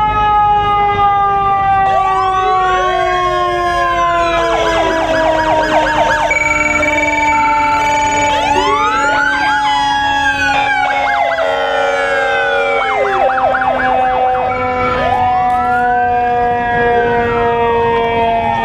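Several emergency-vehicle sirens sounding together from passing police cars and a fire engine. Slow rising-and-falling wails switch twice to fast yelps, over long tones that slowly fall in pitch, with a few brief steady blasts mixed in.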